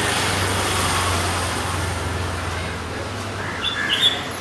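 Steady hum of road traffic with a low drone, then a few short, high chirps from a small bird close together near the end.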